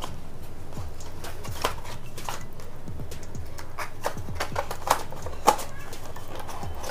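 Cardboard packaging being handled and opened: scattered soft taps and scrapes of paperboard flaps, the loudest a little after the middle, over a steady low background hum.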